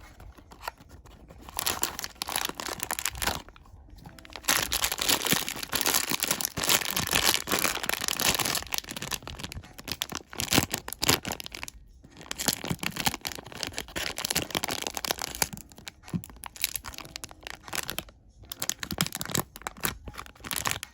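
Blind box packaging being torn open by hand: cardboard and the wrapping inside ripped and crinkled in long stretches, with a few short pauses.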